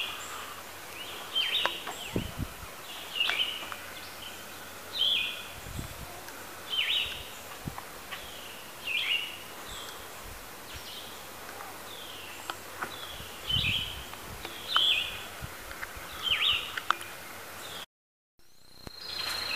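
A songbird calling repeatedly, a short downward-slurred call about every two seconds, over a faint outdoor background with a few soft low thumps. Near the end the sound cuts out briefly and a steady high insect trill begins.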